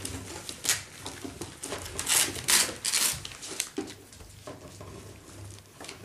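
Seven-week-old Parson Russell Terrier puppies playing on newspaper spread over a wooden floor: rustling paper and scrabbling paws, with the loudest rustles about two to three seconds in.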